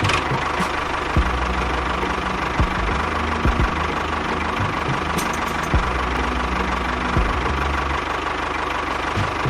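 A small motor running steadily, with a few sharp clicks, over low background music.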